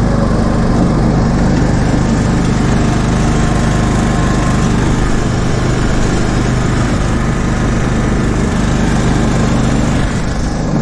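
Riding mower's 20 hp Kohler Courage engine running steadily with an even low hum, warm after starting.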